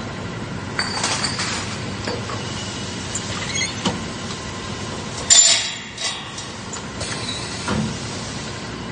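Steady running noise of a metal-cutting machine on a factory floor, with intermittent metallic clinks and knocks of metal parts. The loudest is a sharp metal clank about five seconds in.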